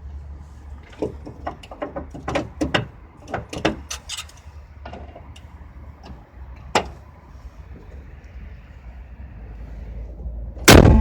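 A Honda Accord's K24Z3 engine running with a low steady rumble, under irregular sharp clicks and knocks. Near the end comes one loud metallic bang with a brief ringing tail, like a door or panel being shut.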